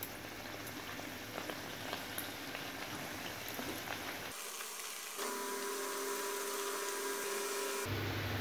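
Parotta shallow-frying in hot oil in a pan: the oil sizzling and bubbling in a steady hiss as the layered flatbread crisps.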